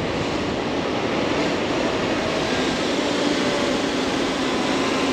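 Faith2 Pro quadcopter drone hovering a couple of metres up, its propellers giving a steady hum over a rushing hiss.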